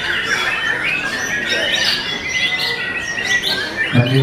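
Several caged white-rumped shamas singing at once in a dense, overlapping mix of rapid chirps, trills and whistles, with one long held whistle through the middle. A low droning sound cuts in right at the end.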